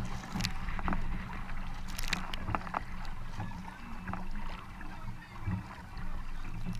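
Double-bladed kayak paddle dipping and pulling through the water on alternating sides, with splashes and drips. A steady low rumble runs underneath.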